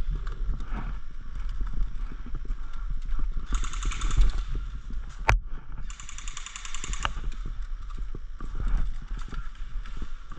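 Footsteps and gear knocking against a body-worn camera over a steady low rumble. Two bursts of rapid airsoft gunfire about a second each, the first about three and a half seconds in and the second about six seconds in, with a single sharp crack between them.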